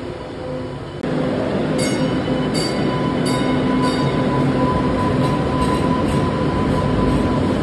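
Boston Green Line Breda Type 8 light-rail car running past the platform of an underground station, its noise jumping up about a second in, with a steady motor hum under it. Four short high squeals from the wheels come between about two and four seconds in.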